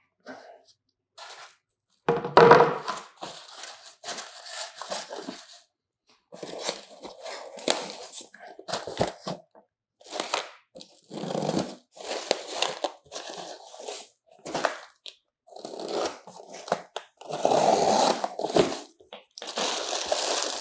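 Cardboard packaging and plastic wrapping being torn, crinkled and shuffled in irregular bursts as flat-pack furniture panels and a small cardboard parts box are unpacked. The loudest burst comes about two seconds in.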